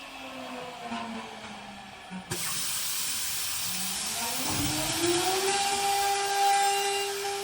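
High-speed spindle of a K2000 CNC lock-mortising machine: a whine falls in pitch as it winds down, then a sudden steady hiss starts about two seconds in. The spindle then spins back up with a rising whine and holds a steady pitch.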